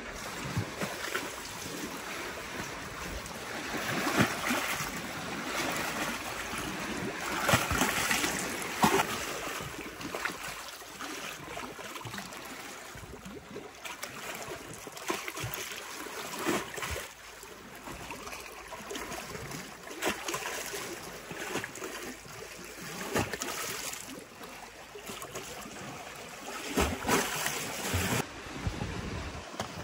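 Small lake waves lapping and splashing against a stone shore edge, coming in irregular surges, with louder splashes about eight seconds in and near the end.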